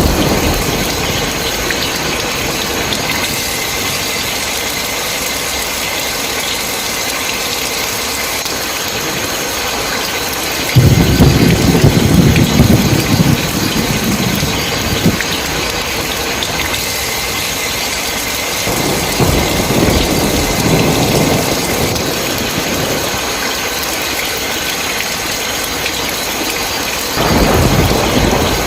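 Steady rain falling with rolls of thunder rumbling over it: a loud one breaks in suddenly about a third of the way through, a softer one follows past the middle, and another near the end.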